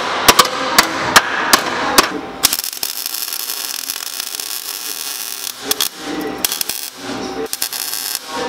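Several sharp metal taps, about two a second, for the first two seconds, then a MIG welder's arc crackling steadily as the new lower radiator core support is welded to the frame rails, breaking into shorter bursts near the end.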